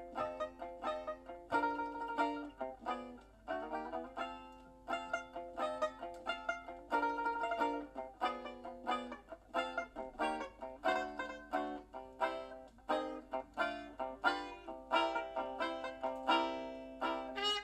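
Acoustic music played back through KEF R7 floorstanding hi-fi speakers and heard in the room: a plucked string instrument picking quick notes, each one starting sharply and dying away.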